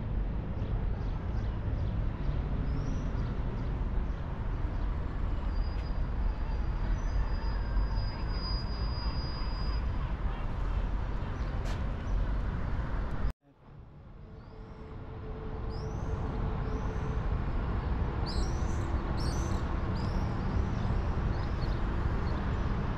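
Steady low rumble of city traffic, with small birds chirping, mostly in the second half. The sound cuts out abruptly about halfway through and fades back in.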